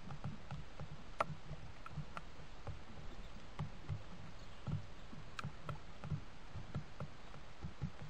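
Wood pigeons pecking at dried mealworms in a shallow dish: irregular light taps and clicks over soft low thumps.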